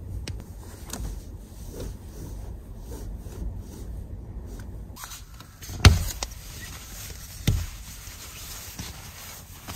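Two sharp thumps about a second and a half apart, the first the louder, over a steady low rumble.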